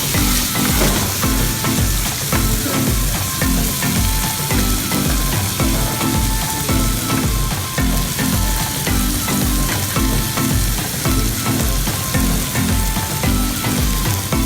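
Garlic chicken frying in a pan with a steady sizzle, under background music with a steady beat.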